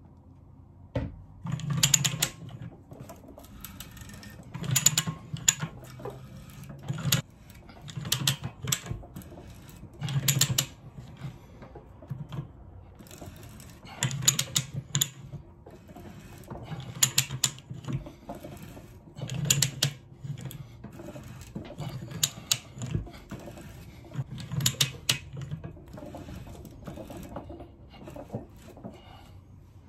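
Ratcheting pipe threader clicking in bursts roughly every two to three seconds as its handle is swung back and forth, the die cutting thread into galvanized steel pipe.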